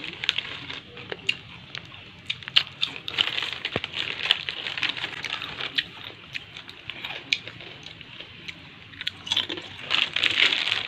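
A person biting into and chewing a crunchy snack: irregular crisp crunches, many in quick succession.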